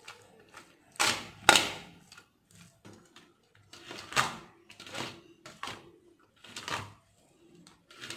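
Cooked rice being mixed in a stainless steel bowl, scraping and knocking against the steel in about half a dozen short strokes, the two loudest near the start.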